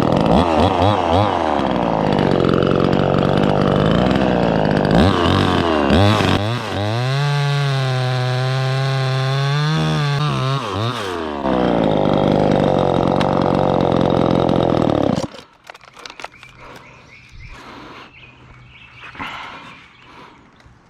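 Chainsaw engine cutting a small stub off a tree limb, its pitch dipping and rising as it bites into the wood and revs. It shuts off sharply about fifteen seconds in, leaving only faint rustling.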